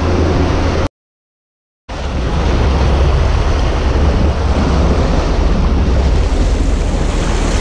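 Steady drone of a sport-fishing boat's engines under the rush of the wake water and wind buffeting the microphone. The sound cuts out completely for about a second near the start, then resumes unchanged.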